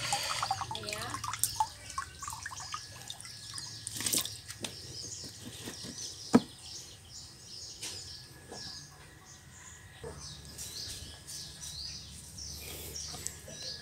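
Scattered water drips and small splashes, with small birds chirping throughout; a single sharp click about six seconds in.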